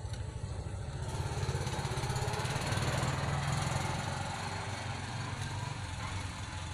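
A small engine running with a fast, even pulse, growing louder to a peak about three seconds in and then easing off.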